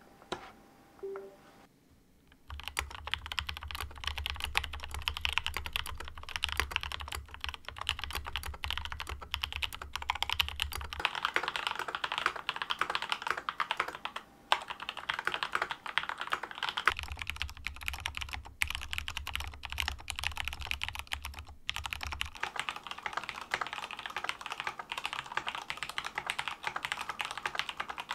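Fast typing on a Groovestone GS104 mechanical keyboard with cream switches, PBT keycaps and a plastic-wrap-modded hot-swap PCB: a dense, continuous run of keystroke clacks beginning about two seconds in, after a single short click about a second in.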